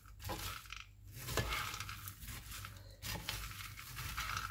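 Spatula stirring rice in a frying pan: irregular scraping and shuffling, with a sharp knock against the pan about a second and a half in.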